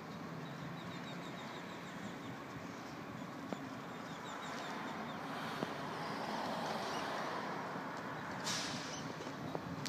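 Outdoor street ambience: a steady background of traffic noise that swells about halfway through, with a small bird chirping in quick runs during the first few seconds and a short rush of noise near the end.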